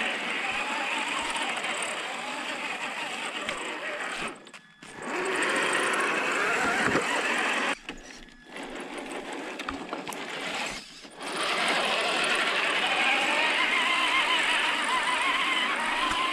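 Electric motor and geared drivetrain of a Carisma SCA-1E scale RC crawler whining as it drives, the pitch wavering with the throttle. It stops briefly three times, about four, eight and eleven seconds in.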